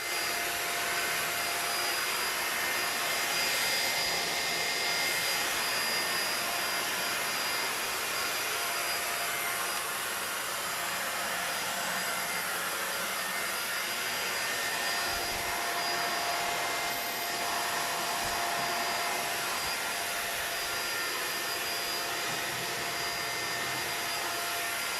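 Deerma DX700 vacuum cleaner running steadily, a rushing airflow with a steady high motor whine, switched off at the end.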